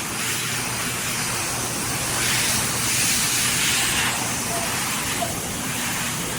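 High-velocity pet hair dryer blowing air: a steady, loud rushing hiss that swells for a couple of seconds in the middle.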